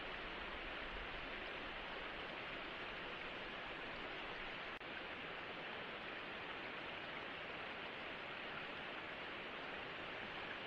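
Steady, even hiss with no distinct events, broken by one momentary drop-out about five seconds in.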